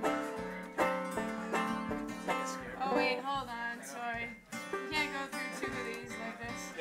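Acoustic band music played on plucked string instruments, a run of picked notes with a strong twang.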